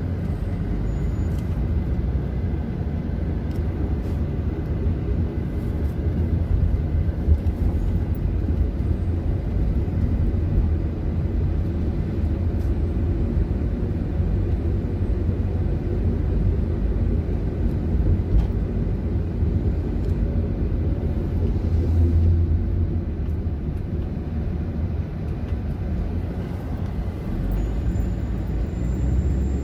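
Car driving slowly on a city street, heard from inside the cabin: a steady low rumble of engine and tyre noise.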